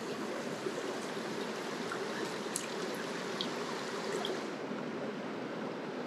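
Mountain stream running steadily, a constant rush of water.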